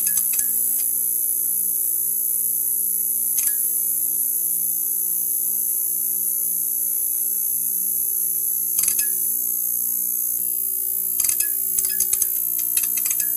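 Neon sign buzzing with a steady electrical hum and a high-pitched hiss, broken by sharp crackling clicks: one about three and a half seconds in, a cluster near nine seconds and a quick run of crackles near the end.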